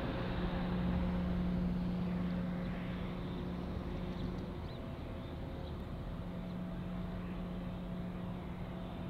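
Diesel locomotives of an approaching freight train running in the distance, a steady low engine drone.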